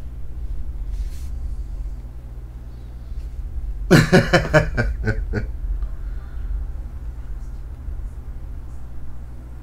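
A person laughing in a short burst of quick "ha-ha" pulses about four seconds in, fading over a second and a half, over a steady low room hum.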